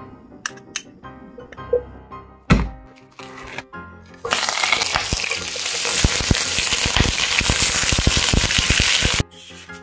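Sausages sizzling and crackling in hot clarified butter in a frying pan, starting loudly about four seconds in and cutting off suddenly near the end. Before that, a few knocks as the butter goes into the pan, with soft background music throughout.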